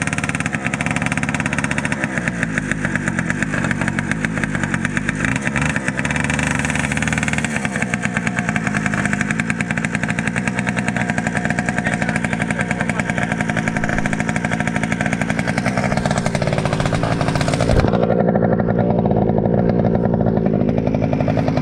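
Small single-cylinder engine running steadily after a cold start. About three seconds before the end there is a knock, and after it the engine sounds muffled.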